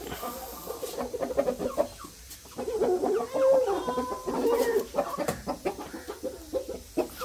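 Chickens clucking: a run of short clucks, with a longer drawn-out call in the middle.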